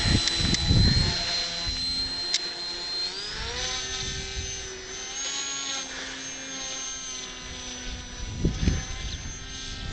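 Electric motor and propeller of a foam RC motor glider in powered flight, a steady high-pitched whine that rises in pitch about three seconds in and then holds. Wind buffets the microphone about a second in and again near the end.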